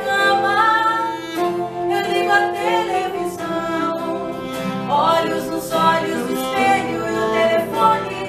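Music: a slow ballad played by a small band of keyboard and acoustic guitar, with a melodic lead line that slides between sustained notes over the chords.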